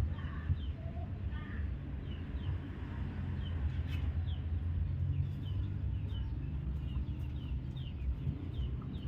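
Small birds chirping repeatedly, short falling chirps scattered throughout, over a steady low hum.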